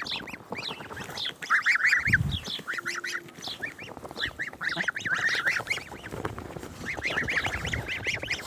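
A flock of domestic geese honking and calling over one another in rapid, overlapping calls. There is a brief low thump about two seconds in.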